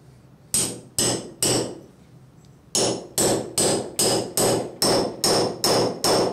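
Hammer striking a steel setting tool to drive the expander plug of a drop-in anchor in a solid concrete block, setting the anchor: three blows, a short pause about two seconds in, then a steady run of quicker blows, about two and a half a second, each with a short metallic ring.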